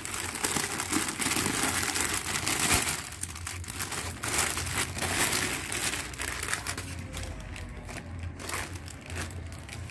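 Thin plastic packaging crinkling as hands pull a folded shirt out of a clear polybag. The crinkling is loudest over the first three seconds, then thins to quieter scattered crinkles.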